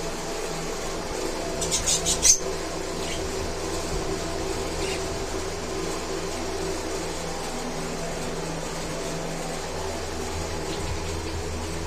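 Steady mechanical hum of a small motor, like a fan or pump. About two seconds in, a short cluster of high, sharp sounds rises above it.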